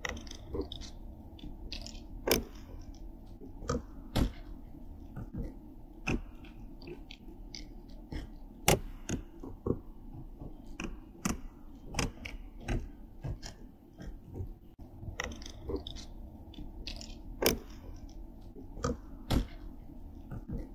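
Irregular sharp clicks and soft crackling sounds, about one a second and some in quick clusters, over a steady low background noise. They come from an unidentified source in a night-time field recording, which the recordist takes for the clicking whisper-speech of Sasquatch.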